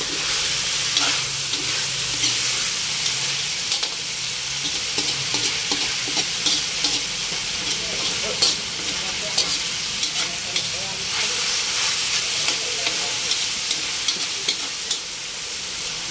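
Chicken pieces sizzling in hot oil in a wok as they brown, with a spatula scraping and clicking against the pan in irregular strokes as they are stirred.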